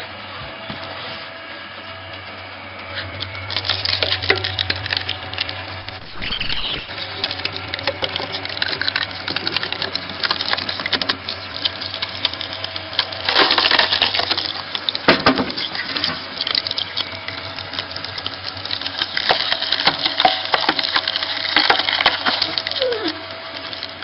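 Screw-type cone log splitter at work: its motor hums steadily while the spinning threaded cone bores into a log, which crackles, cracks and splinters as it tears apart. The loudest cracking comes about halfway through and again toward the end.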